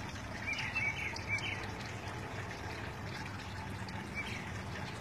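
Faint bird chirps, a few short calls near the start and one about four seconds in, over a steady background hiss.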